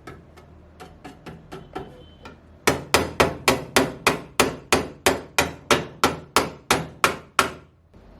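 Hammering: a series of light taps, then a steady run of sharp, loud hammer blows at about four a second that stops near the end.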